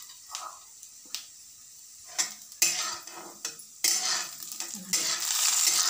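A few clinks of a spatula and bowl against a metal kadai, then chopped onion tipped into hot sesame oil with the tempering of mustard seeds, urad dal and cumin, starting to sizzle. The sizzle grows louder over the last couple of seconds.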